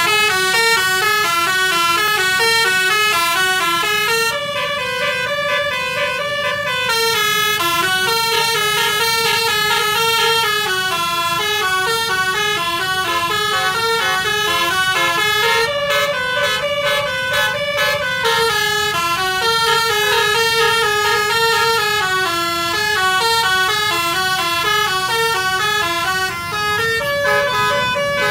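Bus telolet horn, a multi-trumpet air horn, playing a continuous tune of short stepped notes that rise and fall.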